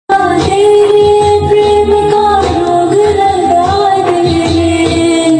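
A song: a singer holds long notes that bend slowly in pitch over backing music. It cuts in suddenly at full loudness.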